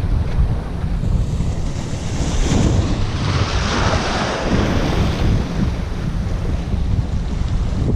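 Small waves breaking and washing through boulders of a rock shoreline, one surge of foaming wash swelling about two seconds in and fading by five. Heavy wind buffeting on the microphone rumbles underneath the whole time.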